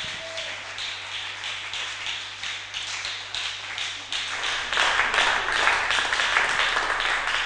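Congregation applauding: many hands clapping, the applause swelling louder about halfway through.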